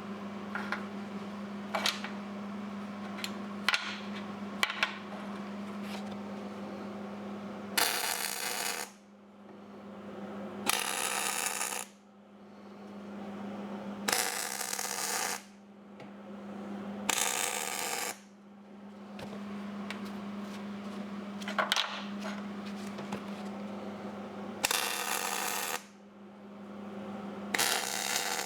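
Six short bursts of arc welding crackle, each about a second long, laying on weld metal in stages, over a steady electrical hum. A few light metal clicks come in the first few seconds.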